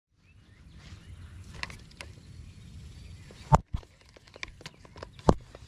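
Footsteps and scuffing on dry ground, with scattered clicks and two sharp knocks over a low rumble of wind on the microphone.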